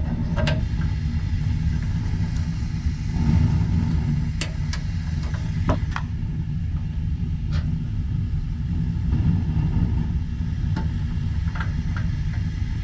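Gas water heater burner firing with a steady low rumble after being relit, with a few light clicks and taps scattered through it.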